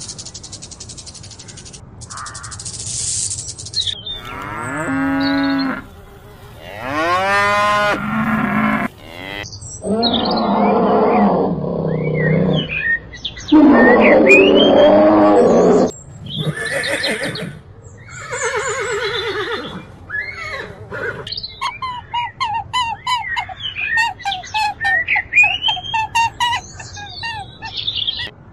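A string of different animal calls edited back to back. It opens with a hiss and, from about 4 s on, a series of loud pitched calls and cries, the loudest about halfway. It ends with a quick run of short chirping calls.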